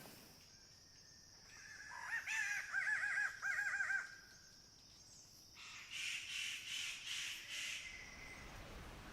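Bird-of-paradise calls: a fast run of looping whistled notes, then a series of about six harsh, rasping cawing notes.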